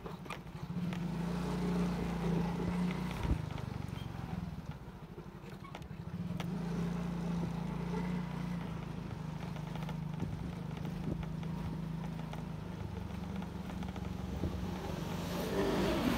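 Motorcycle engine running while riding, easing off about three seconds in and picking up again around six seconds. Another motorcycle passes close near the end.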